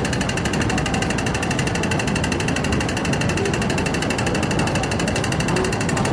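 Steady train noise: an even rumble with a faint high steady tone, holding the same level throughout.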